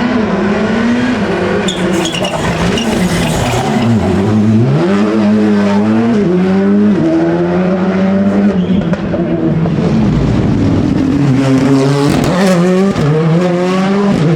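Rally car engine revving hard. Its pitch drops sharply about four seconds in as it slows, then climbs again through the gears, and dips and rises once more near the end.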